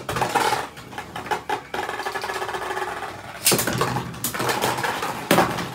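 Beyblade Burst spinning tops whirring and rattling as they spin around a plastic stadium. There are sharp clacks about three and a half, four and a quarter, and five and a quarter seconds in, as the tops strike each other or the stadium wall.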